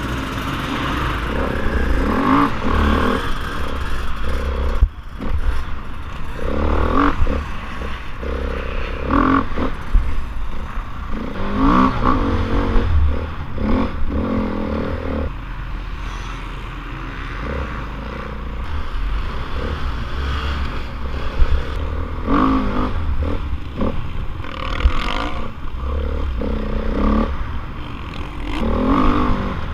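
Motocross bike engine revving up and down again and again as it pulls away from the start gate and is ridden hard over a sandy track, with wind buffeting the helmet-mounted microphone. A couple of sharp knocks stand out, about five seconds in and again past twenty seconds.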